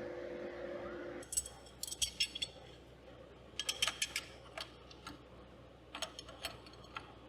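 Small metal tool parts clicking and clinking in short clusters as the CNC router's knife tool is handled and fitted. A steady hum stops about a second in.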